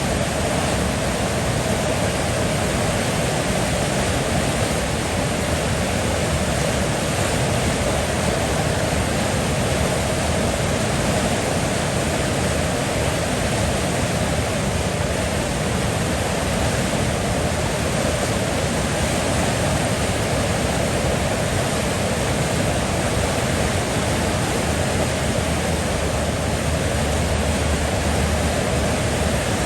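River water flowing, a steady, even rushing with no breaks or changes.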